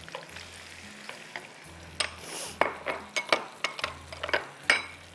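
Wooden spoon stirring chopped tomatoes and ginger-garlic frying in hot oil in a non-stick wok: a low sizzle with irregular clicks and scrapes of the spoon against the pan, and a brief louder hiss about two seconds in.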